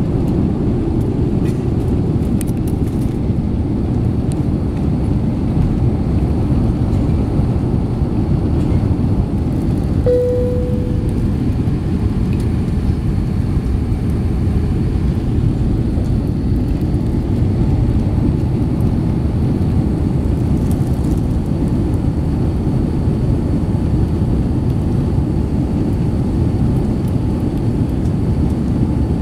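Cabin noise of an Airbus A350-900 at takeoff thrust, its Rolls-Royce Trent XWB engines and the airflow making a loud, steady low rush through the takeoff roll and climb-out. A single brief tone sounds about ten seconds in.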